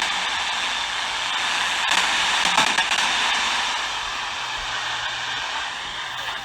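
Steady hiss of radio static, with no voice coming through.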